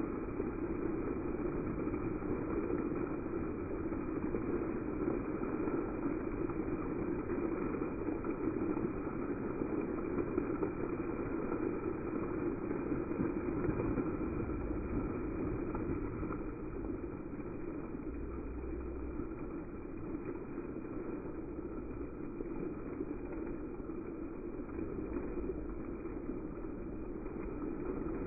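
Water jets of a dancing fountain splashing down onto the wet pavement and pool, a steady rush that gets a little softer about halfway through as the jets drop lower.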